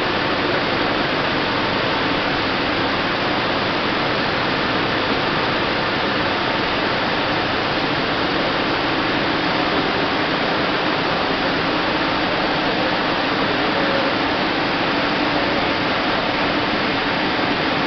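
Aseptic filling line running: a steady, even rushing noise with a faint hum, as liquid is filled into an IBC bag liner.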